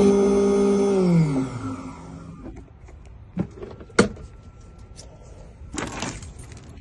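Electric key-cutting machine's motor running with a steady hum, then spinning down with a falling pitch about a second in. A few sharp clicks follow, the sharpest about four seconds in, then a short rustle near the end.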